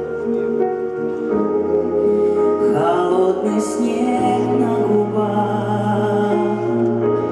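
Slow pop ballad played live: sustained keyboard-like chords over a held bass note that changes twice, with a woman singing a gliding phrase about three seconds in.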